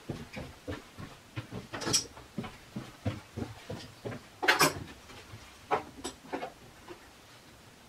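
Footsteps on a wooden floor and tools and a clamp being handled and set down on a wooden bench: a run of light knocks and clicks, with a sharper knock about two seconds in and a longer, louder clatter about four and a half seconds in.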